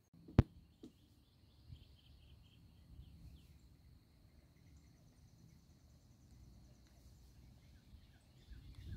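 Quiet outdoor ambience: small birds chirping in quick repeated series over a steady high insect buzz, with one sharp click about half a second in.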